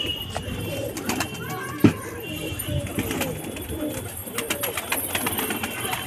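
A flock of domestic pigeons cooing, many short coos overlapping, with scattered sharp clicks and one loud knock just under two seconds in.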